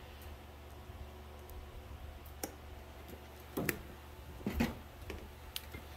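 Scattered light clicks and a few soft knocks from hands handling tools and materials, over a faint steady low hum.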